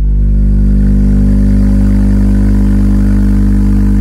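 SLAPZ Audio Oblivion 12-inch dual-voice-coil subwoofer in free air playing a steady 50 Hz test tone, driven hard at about 2,600 watts RMS. A loud, constant low hum, rich in overtones.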